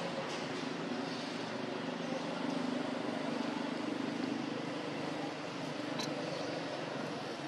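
A steady distant engine drone that swells from about two seconds in and eases off again after about four and a half seconds, with a brief sharp click about six seconds in.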